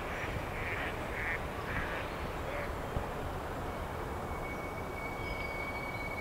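A water bird giving a quick series of short calls, about two a second, which stop about two and a half seconds in. A thin, steady high tone comes in near the four-second mark over a constant low background hum.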